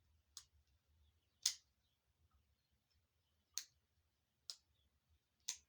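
Tangram Santa Fe folding knife's blade being opened and closed, five sharp, separate clicks as it snaps into place. The lockup is being tested, and the owner finds it poor.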